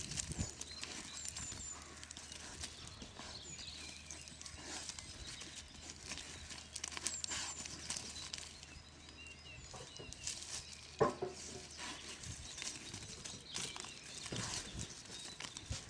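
Pigs moving about and rooting on open ground: scattered rustles, clicks and hoof steps, with one brief pitched sound from an animal about eleven seconds in.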